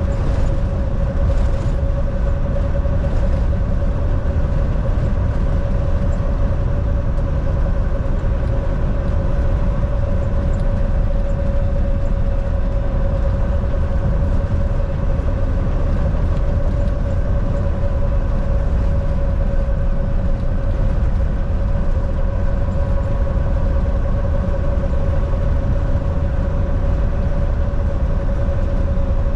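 Volvo semi-truck running steadily at road speed: a continuous low engine drone with a steady hum and a constant haze of tyre and road noise, no change in pace.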